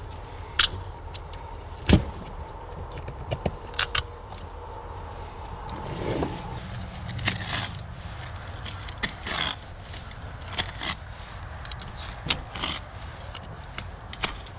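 Tin snips cutting through an alligator gar's hard, scaly armoured skin, making irregular sharp metallic snaps and crunches, along with a knife scraping and slicing along the scales, over a low steady background rumble.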